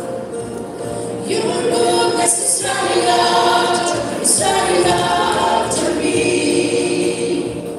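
Women's choir singing a sacred song in sustained phrases, accompanied by an electronic keyboard.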